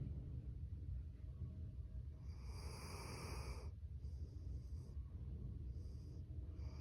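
Sleeping dog breathing and snoring. One longer, airy snoring breath comes about two seconds in, then shorter breaths follow roughly every two seconds, over a low steady rumble.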